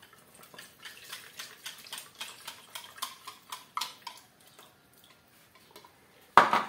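A small whisk clicking and scraping against a small bowl, several light clicks a second for about four seconds, as the flour-and-milk thickener is scraped out into the pot. About six and a half seconds in comes one loud clack.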